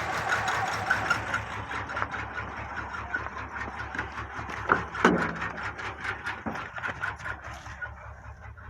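Nissan VQ35 3.5-litre V6 idling from a cold start on only three cylinders, one bank shut off to cause deliberate misfires, with a steady run of ticks and a knocking noise through the idle. A couple of louder knocks stand out about five seconds in.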